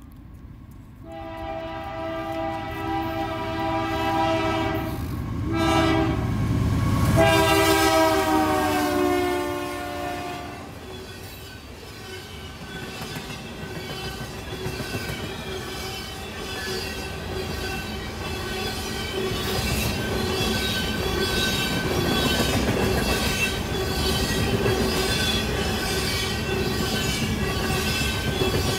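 Freight train passing: the locomotive's multi-chime air horn sounds in several blasts, the last one falling in pitch as the locomotive goes by, then the covered hopper cars roll past with a steady rhythmic clicking of wheels over rail joints and a faint wheel squeal.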